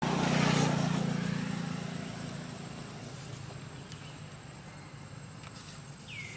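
Engine noise of a passing motor vehicle, loudest at the start and fading away over about three seconds.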